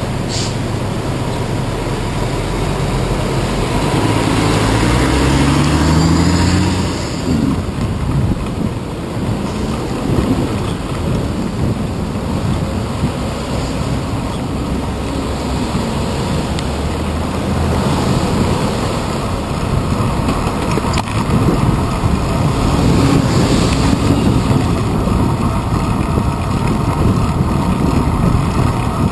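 Steady wind and road rumble on a handlebar-mounted action camera, riding a bicycle through city traffic. A nearby motor vehicle's engine rises in pitch about three to seven seconds in as it accelerates away.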